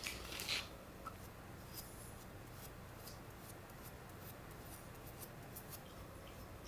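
Faint, scattered ticks and light rasps of a comb being drawn through a Pomeranian's thick fur.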